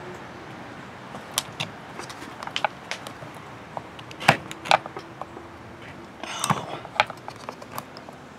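Scattered small clicks, ticks and scrapes of fingers and a tool working a small fuel hose off the carburetor inside an Echo CS-345 chainsaw's plastic housing, with a brief rustling scrape about six seconds in.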